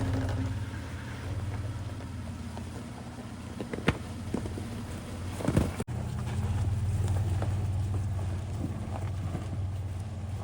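Truck crawling along a rocky off-road trail: a steady low engine and tyre rumble, with a sharp knock about four seconds in and a few more clunks a second and a half later as it goes over rocks.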